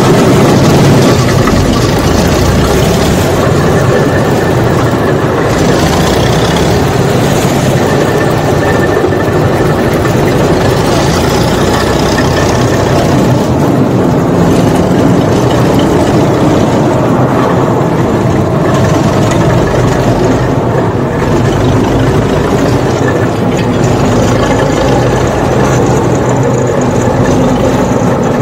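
Old road roller's diesel engine running steadily, freshly started, a little louder in the first second.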